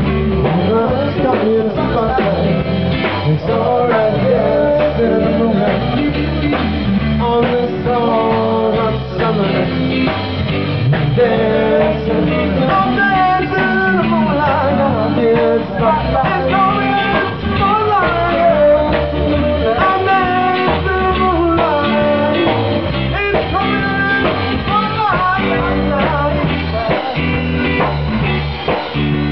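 Blues-rock song with guitar and singing.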